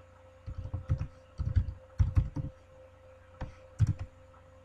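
Typing on a computer keyboard as a password is entered: several short runs of keystrokes, the last one about four seconds in.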